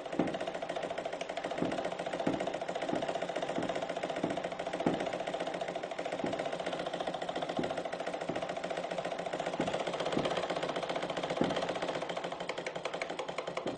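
A steady, machine-like whirring buzz with a rapid flutter and a held hum, with scattered soft knocks.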